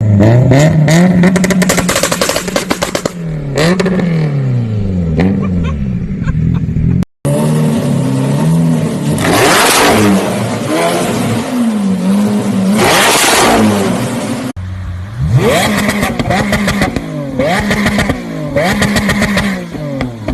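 Sports-car engines revved hard through loud aftermarket exhausts, the note climbing and dropping with each blip, with crackles and pops on the overrun. Three separate cars or takes follow one another, cut abruptly about 7 and 14 seconds in.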